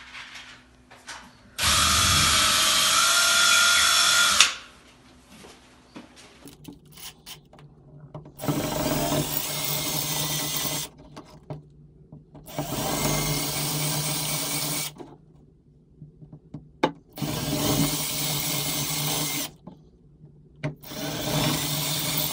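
Cordless drill with a 3/16-inch bit widening pilot holes in drywall for wall anchors. It runs in five separate bursts: a steady whine of about three seconds starting a couple of seconds in, then four runs of two to three seconds each.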